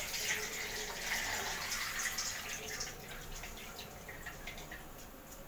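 Water poured from a steel pot over flattened rice (poha) in a steel mesh strainer, splashing through into a steel bowl below. The pouring fades after about three seconds, leaving drips and small splashes as a hand works the wet rice.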